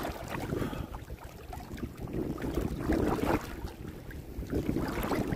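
Wind rumbling across the microphone, with water sloshing in uneven surges as someone wades through shallow water pushing a wire crab scoop.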